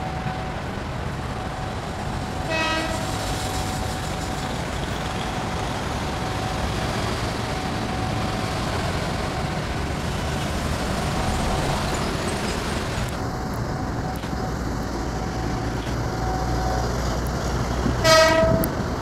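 KRL commuter electric train approaching at low speed with a steady running rumble; its horn gives a short toot about two and a half seconds in and a longer, louder blast near the end.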